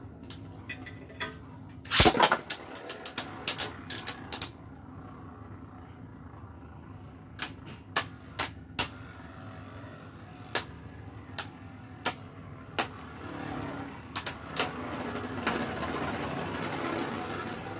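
Two Beyblade Burst spinning tops clashing in a plastic stadium. A flurry of sharp clicking hits comes about two seconds in, then single knocks every half second or so, and a steady whirring rattle builds near the end.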